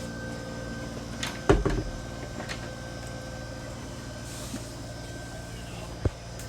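Boat cabin door to the head being handled: a click and then a sharp knock about a second and a half in, with lighter clicks later, over a steady hum.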